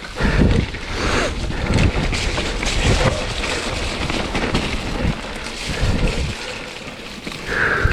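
Wind buffeting the microphone in uneven gusts over the noise of a mountain bike descending a wet, muddy trail in the rain, with a short high squeal near the end.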